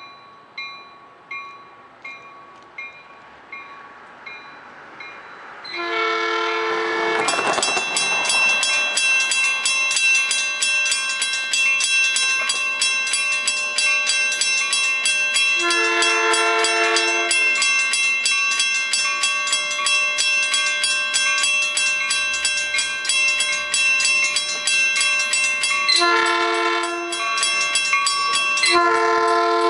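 Railroad grade-crossing bell ringing, faint at first and then loud from about six seconds in, while an approaching Metrolink commuter train sounds its multi-note horn for the crossing: two long blasts, a shorter one, and a last long one starting near the end.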